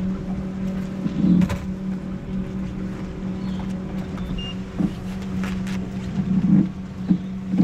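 Steady motor hum from a boat, holding one pitch, with a few short knocks and clicks over it.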